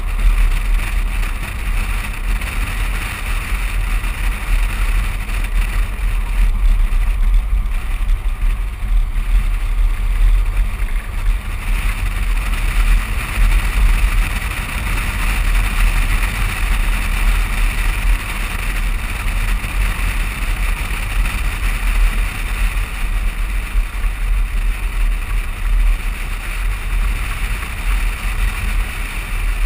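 Steady wind and road noise of a moving vehicle, heard through a camera mounted outside on the body below the side mirror, with a strong low rumble under it.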